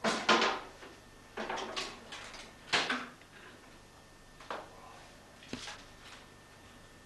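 Willow rods scraping and creaking in several short bursts as they are pulled and woven through a wicker lobster pot. The loudest bursts come at the start and about three seconds in.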